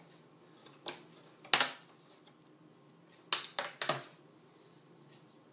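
Plastic keyboard bezel of a Dell Inspiron 9300 laptop being pried up, its clips snapping loose: a light click, then a sharp snap about a second and a half in, and three quick snaps close together near four seconds.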